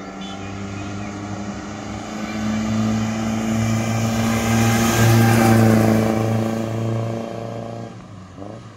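A 1972 Premier President car's engine and exhaust as the car drives past. The engine note holds steady while it grows louder, is loudest a little past halfway, then fades as the car moves away.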